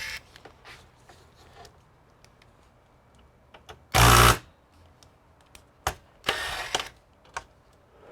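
Bench handling noise: scattered light clicks, a loud thump about four seconds in, and a brief scraping rustle about six seconds in.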